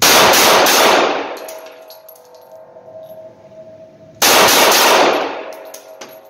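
Smith & Wesson CS45 compact .45 ACP pistol firing two quick strings of shots, the first at the start and the second about four seconds in, each echoing off the walls of an indoor range.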